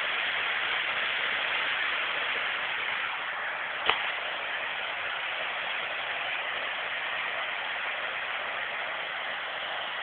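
Waterfall pouring over rocks into a pool: a steady rushing of water, with a single short click about four seconds in.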